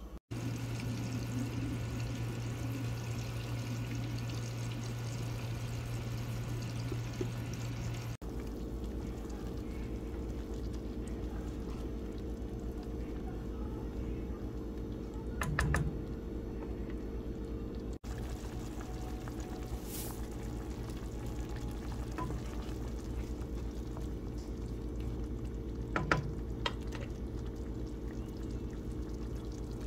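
A pot of tomato and onion broth bubbling at a simmer, over a steady low hum, with a couple of light knocks.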